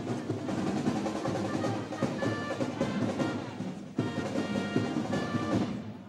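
A band of drums and trumpets playing for a flag display: drum rolls and beats under held trumpet notes, with a brief break about four seconds in.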